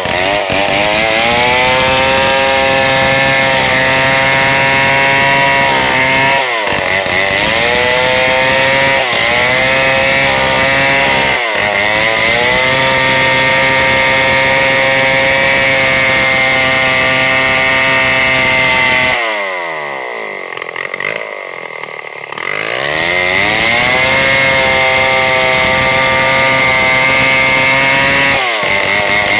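Chainsaw running at high revs as it cuts through a large log. Its pitch dips and recovers briefly a few times, then drops away for about three seconds about two-thirds of the way through before revving back up.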